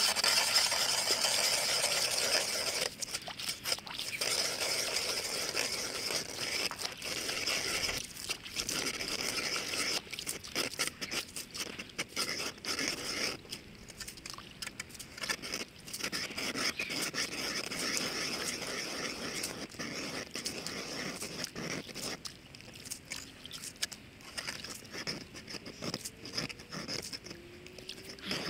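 Hand-cranked ice auger drilling through lake ice: the blades shave the ice with a steady rasping scrape. The scraping comes in long runs broken by brief pauses and grows weaker over the last several seconds.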